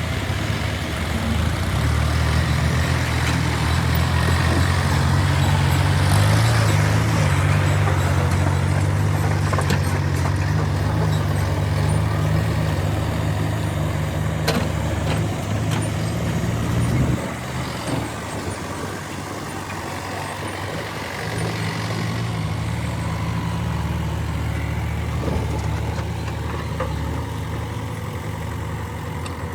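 Heavy diesel engine running steadily, working harder and louder for the first half. It eases off sharply about halfway through, then picks up again a few seconds later.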